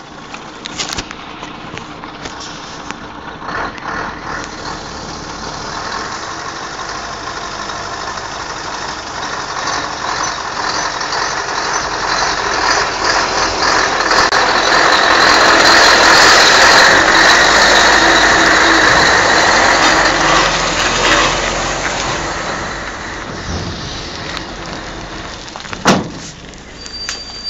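Scania 143M 470 truck's V8 diesel engine running as the truck rolls slowly onto a steel plate and passes close by. The sound grows louder, peaks in the middle, then eases off. A single sharp knock comes near the end.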